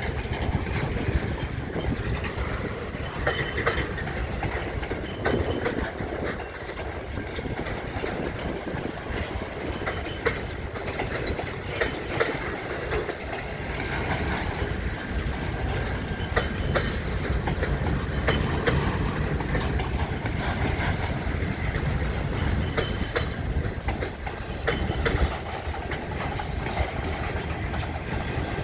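Freight cars of a CN freight train rolling past, a steady low rumble with repeated clicks of steel wheels over the rail joints.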